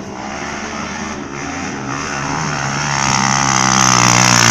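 Dirt bike engine getting steadily louder as it draws near, its pitch climbing as the rider opens the throttle.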